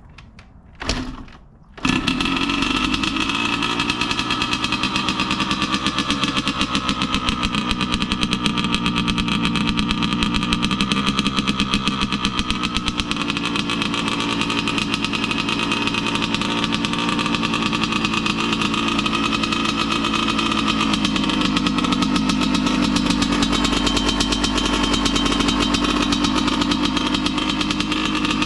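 2001 Yamaha YZ125 two-stroke engine with an FMF expansion pipe catches about two seconds in and then idles steadily, with small rises and falls in speed. This is its first run on a freshly rebuilt top end, before the coolant has been added.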